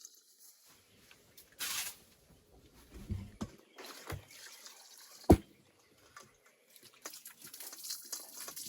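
Water splashing and dripping as freshly peeled coco and yam are washed, with one sharp knock about five seconds in.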